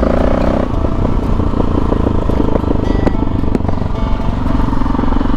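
The single-cylinder engine of a KTM 640 Adventure running steadily as the motorcycle is ridden, its low, pulsing thump heard from the bike.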